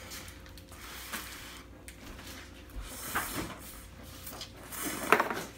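Fork and bowl handling: light knocks and scraping of a fork in a bowl of noodles, with one sharper, louder sound about five seconds in.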